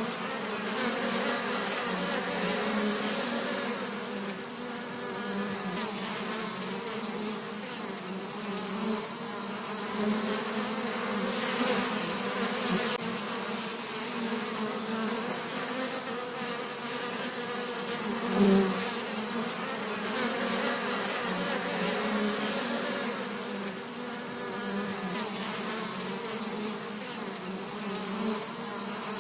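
Bees buzzing: a steady drone of wingbeats wavering slightly in pitch, with one brief louder swell about eighteen seconds in, as of a bee passing close.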